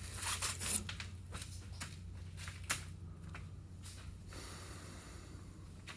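Steady low hum, with a few scattered light clicks and knocks.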